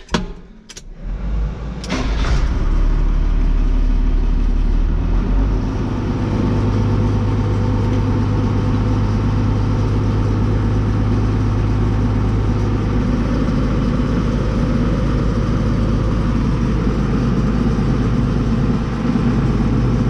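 Tractor engine running steadily inside the cab, with the steady rush of the newly repaired air-conditioning blower. A few clicks come first, then the sound comes up sharply about two seconds in, and the engine's low note shifts a few seconds later.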